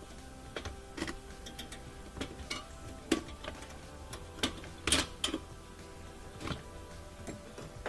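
Irregular clicks and knocks of hand tools working at the ice blocking the freezer's drain, over faint steady background music.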